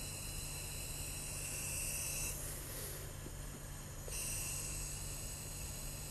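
One rescue breath blown into a pocket mask, a breathy rush of just under two seconds about midway, over a steady background hiss.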